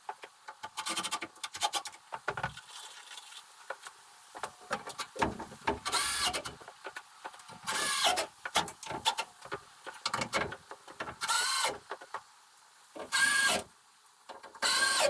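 Power drill driving screws into wooden 2x6 framing while a header is fastened in, in about half a dozen short runs of a second or less, the motor whining up and then winding down. Between the runs come knocks and clicks of wood being handled and positioned.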